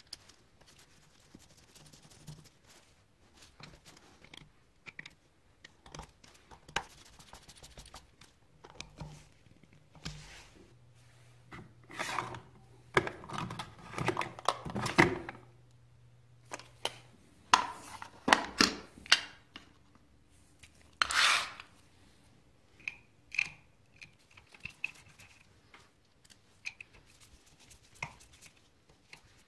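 Hands assembling the ignition points plate of a small motorcycle engine: scattered light clicks and taps of small metal parts and a screwdriver. Around the middle comes a louder spell of rattling and rustling as a plastic small-parts drawer is opened and a packet handled.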